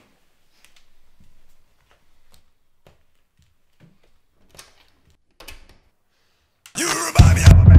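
Faint small clicks and rustles, then loud music with heavy bass and drums starts suddenly from a portable speaker near the end.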